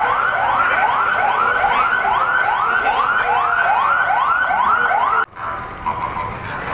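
Vehicle siren in a fast yelp: rapid rising sweeps, about two and a half a second, loud and even. It cuts off abruptly about five seconds in, after which a fainter siren and street noise carry on.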